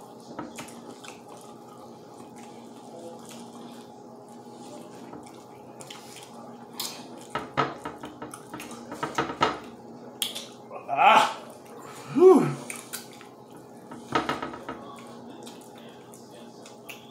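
Wet chewing and lip-smacking of people eating spicy fried chicken, scattered clicks that come in clusters, over a faint steady hum. About eleven and twelve seconds in there are two short voiced cries that slide up and down in pitch, reactions to the heat of the chicken.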